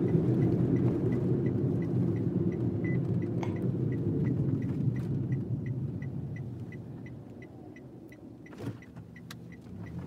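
Inside a car cabin: road and engine noise fading as the vehicle slows to a stop, with the turn-signal indicator ticking steadily, about three ticks a second. A single knock comes near the end.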